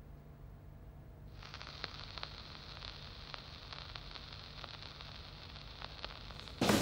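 Record player stylus set down on a vinyl record: about a second and a half in, the surface hiss of the lead-in groove starts, with scattered crackles and pops. Music starts right at the end.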